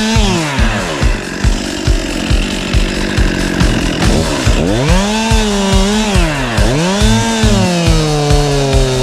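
Stihl two-stroke chainsaw cutting wood: the engine pitch sinks and stays low under load for a few seconds, then rises and falls several times as the throttle is worked. Background music with a steady beat plays alongside.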